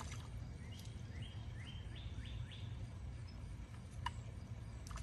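A bird calling a quick run of about six short rising chirps in the first half, over a steady low rumble; a single faint click comes near the end.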